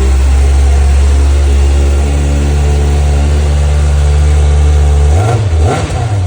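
Kawasaki ZX-6R's inline-four engine running steadily through its stock exhaust. About five seconds in come two quick throttle blips, the pitch rising and falling each time before it settles back.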